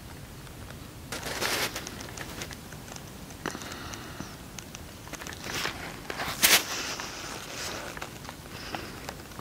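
Egyptian geese giving hoarse, breathy hissing calls in several bursts, the loudest about a second in and again near six and a half seconds, with scattered short clicks and crackles between them.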